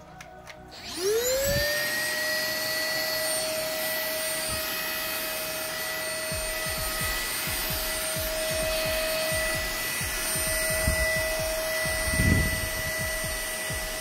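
Puweike P80 cordless stick vacuum switched on about a second in: its motor spins up in a rising whine, then runs at a steady high whine. From about halfway, hands knock and rub against the body.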